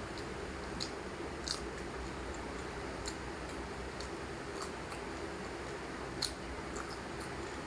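A person eating, with a handful of short, wet mouth clicks and smacks spaced irregularly over a steady background hiss.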